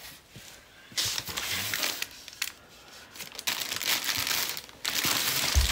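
Clothing packed in clear plastic bags crinkling and rustling as it is rummaged through in a cardboard storage box, in three spells, with a short low thump near the end.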